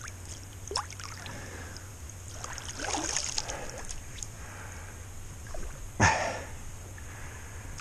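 Shallow river water sloshing and trickling around a wading angler's hands and legs, with a sudden louder thump about six seconds in.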